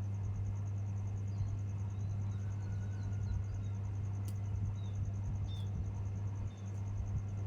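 Garden ambience dominated by a steady low hum, with a faint even hiss, a few soft high chirps and a rapidly pulsing faint high buzz, broken by two brief clicks around the middle.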